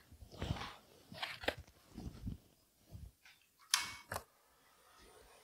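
Faint, scattered knocks and rubbing sounds from a pine blank on a wood lathe's screw chuck being spun by hand with the power off, with a sharper click or two near the middle and about four seconds in.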